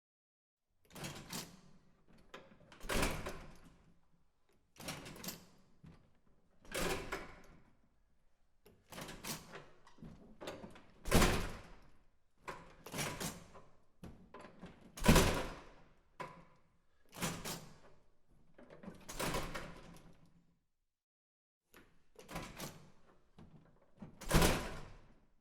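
Door sound effects: a door opened and shut again and again, about six times, each opening followed about two seconds later by the louder thud of it closing.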